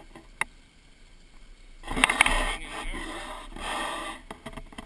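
Scraping and rubbing noise that starts about two seconds in with a few sharp clicks, the loudest moment, then carries on more softly.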